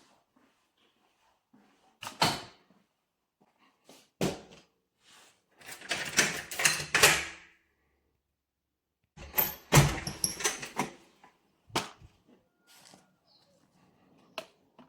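A series of knocks, clatters and scraping sounds, with a longer rattling scrape about six seconds in and a sharp bang near the ten-second mark.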